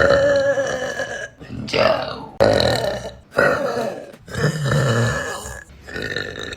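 A woman burping: a run of about five separate drawn-out burps, each one ending abruptly before the next begins, with a quieter stretch near the end.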